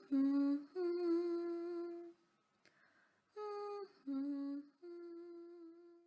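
A person humming a slow, wordless three-note phrase with long held notes, once and then again after a short pause.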